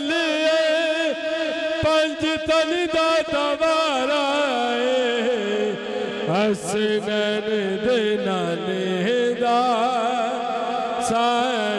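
A man singing a Punjabi naat, a devotional poem praising the Prophet, solo into a microphone, in long held notes with melodic ornaments.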